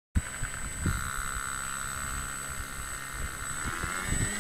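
FMS Ranger 1220 model plane's electric motor and propeller whining at a steady pitch, then rising in pitch about three and a half seconds in as the throttle is opened for takeoff, with wind rumbling on the microphone.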